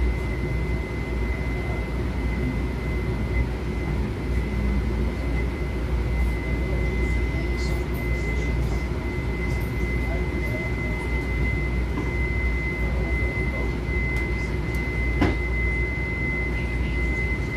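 Inside a standing MTA light-rail car: the car's equipment and ventilation hum steadily, with a constant high-pitched whine over it. A single sharp click comes about fifteen seconds in.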